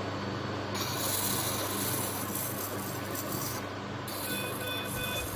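Electrosurgical cautery pencil in use on tissue: two bursts of hissing sizzle, about three seconds and then about two seconds long. A faint high tone runs through the second burst.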